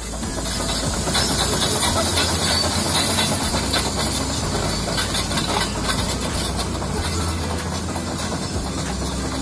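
Heavy construction machinery working: a diesel engine runs steadily under dense metallic clatter and hiss.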